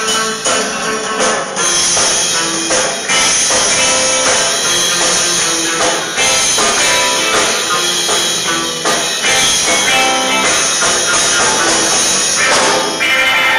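Loud band music with guitar and drums playing continuously.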